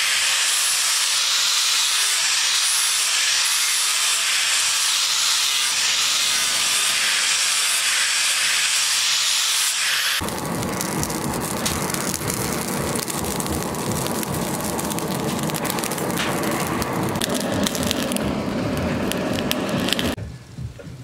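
Electric angle grinder with an abrasive disc grinding a steel knife blade, a loud steady hiss. About halfway through it cuts off suddenly to a charcoal forge fire roaring and crackling, with the blade in it heating.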